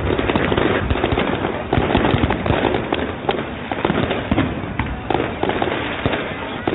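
Fireworks going off in a dense, continuous run of bangs and crackles, several sharp reports every second.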